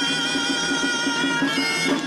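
Traditional folk music played live in the street: nasal reed pipes carrying a melody in held notes over a steady lower accompaniment.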